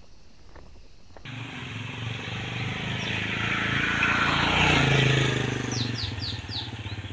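Small motorcycle engine running as the bike rides past close by. It starts about a second in, grows louder to a peak about halfway, then eases off.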